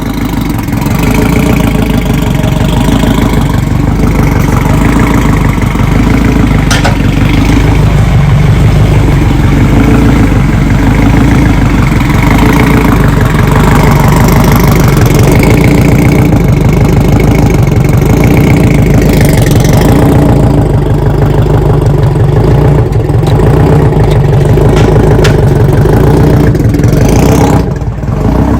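Engine of a Honda-swapped Toyota MR2 running loud and fairly steady, with small rises and dips in pitch. It falls off sharply shortly before the end.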